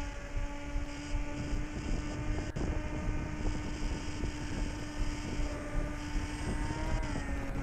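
Small RC airplane's motor and propeller whining steadily in flight, the pitch dropping slightly about seven seconds in.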